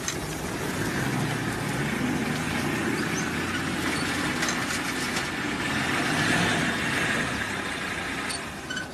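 A vehicle engine running steadily, growing a little louder about six seconds in and easing off near the end.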